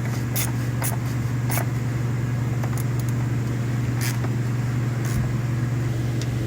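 A handful of short, sharp metallic clicks, irregularly spaced, from a socket ratchet tightening the fastener back down after the oil has drained, over a steady low hum.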